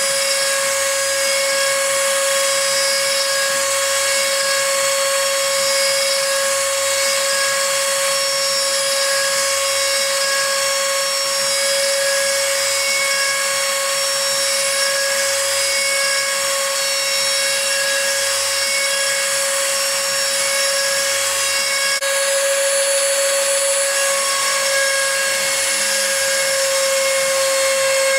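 A Shapeoko 2 CNC machine's rotary-tool spindle runs at a steady high whine while its fine engraving bit cuts letters into soft wood.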